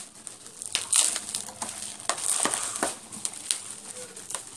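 Plastic parcel wrapping crinkling and crackling as it is handled and pulled open. The crackles are irregular, and the loudest comes about a second in.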